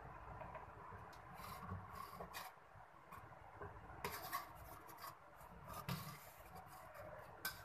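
Faint scraping and a scatter of light clicks from a metal spoon against a steel pot and a ceramic plate, as soft milk-soaked bread rounds are scooped out and set down.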